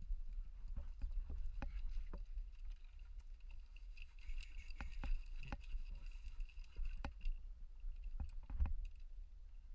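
Irregular knocks and scuffs of movement over a steady low rumble, with a faint high hum for a few seconds in the middle.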